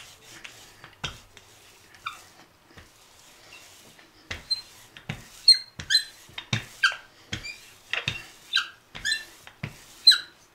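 Wooden rolling pin squeaking as it is pushed back and forth over stiff, cold pastry dough on a floured wooden board, with light knocks. The short, high squeaks start about four seconds in and come about twice a second.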